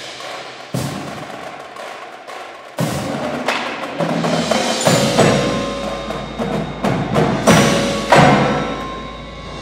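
Indoor percussion ensemble playing: drumline and mallet keyboards (marimbas, vibraphones) striking sharp unison accents, one about a second in and another near three seconds, then a run of accents with ringing keyboard notes after them. A low steady tone comes in about halfway and holds under the hits.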